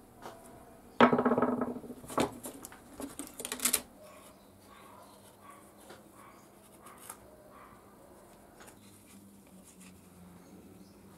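Leather being handled and cut at a workbench: a loud scraping rasp about a second in, a few sharper scrapes up to about four seconds, then only faint rustles and small cuts.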